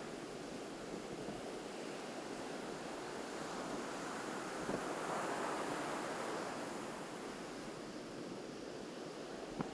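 Ocean surf washing onto a beach in a steady hiss, swelling louder for a couple of seconds around the middle. A brief soft tap near the end.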